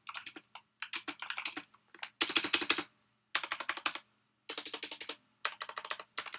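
Corsair K95 RGB Platinum XT mechanical keyboard with Cherry MX Speed switches being typed on: rapid keystroke clicks in short runs with brief pauses between them. The run about two seconds in is the loudest.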